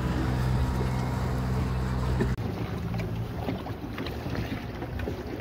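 Motorboat engine running with a steady low drone, then, after an abrupt change a little over two seconds in, water rushing and splashing past the moving boat with wind on the microphone.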